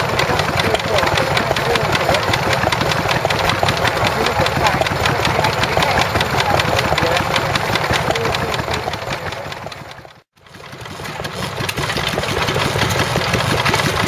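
Lister stationary engine running steadily with an even, rapid beat. About ten seconds in the sound fades out and fades back up on another stationary engine running.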